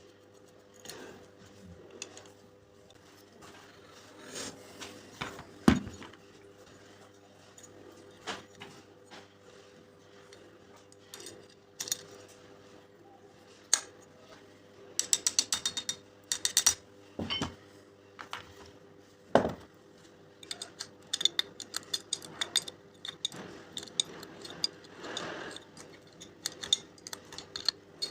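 Small metal parts and hand tools clicking, knocking and clattering as an angle grinder's gear head is worked on, with a quick ratchet-like run of clicks about halfway through. A faint steady hum sits underneath.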